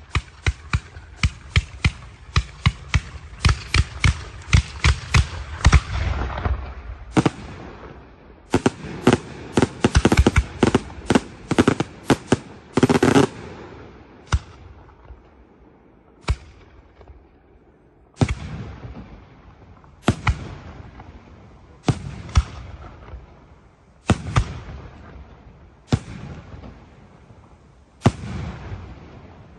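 Aerial fireworks display: rapid volleys of sharp bangs, several a second, for the first six seconds and again from about nine to thirteen seconds in. After a short lull, single loud shell bursts come about every two seconds, each dying away in a fading rumble.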